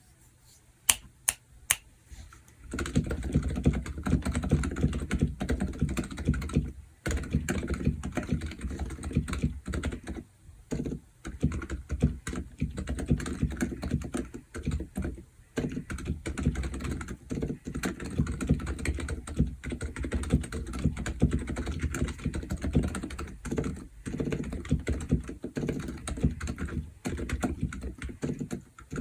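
Continuous fast typing on a Womier K66 mechanical keyboard fitted with stock, unlubricated Silent Alpaca silent linear switches, typed without a deskmat. A few separate sharp clicks come in the first two seconds, then steady rapid keystrokes with short pauses.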